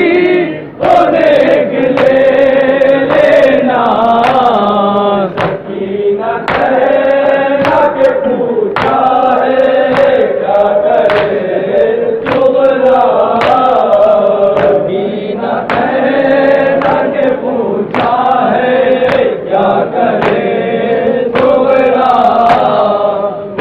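A group of men chanting a nauha, a Shia mourning lament, in unison, led from the book by a reciter. Sharp chest-beating strikes (matam) keep time a little more than once a second.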